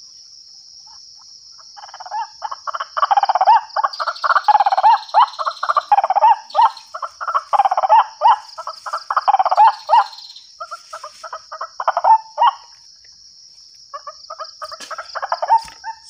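White-breasted waterhen calls played back through a small horn loudspeaker as a lure: a fast run of repeated croaking notes starts about two seconds in and breaks off after about twelve seconds, then a few scattered notes come near the end. A steady high whine runs underneath.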